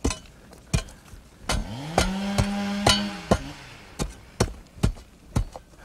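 Firefighters' hand tools, shovels and digging tools, chopping into burned ground and charred wood, about two sharp strikes a second. In the middle a pitched drone rises, holds for about a second and falls away.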